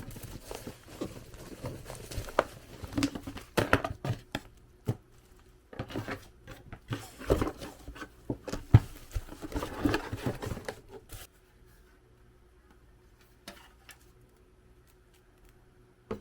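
Handling noises from unpacking a PC power supply: irregular knocks, clicks and rustling of the box and packing for about eleven seconds, then it goes almost quiet, with a few faint clicks.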